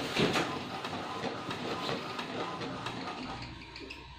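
HP 2515 all-in-one inkjet printer running a copy job, its mechanism whirring and clicking, with a louder clatter just at the start. It is working again after repair.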